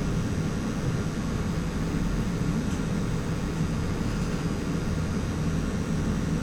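Basement ambience: a steady low hum and rumble that holds even throughout, with faint steady higher tones over it.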